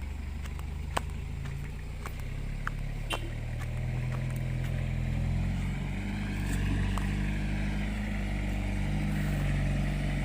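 Modified Mitsubishi L300 4x4's swapped-in Mazda engine running steadily, its low hum growing a little louder from about three seconds in. A few sharp clicks in the first three seconds.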